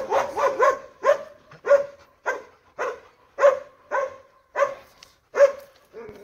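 A dog barking in a steady run of short barks, about two a second.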